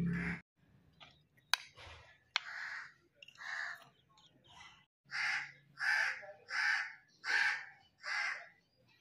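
Crow cawing repeatedly, a few scattered caws and then a quick run of about five in the second half. Two sharp clicks come in the first half.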